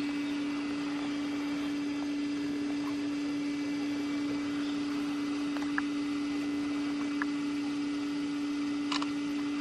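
Steady motor hum with one constant low tone, typical of a water pump running to drain the water. A few faint short chirps sound over it.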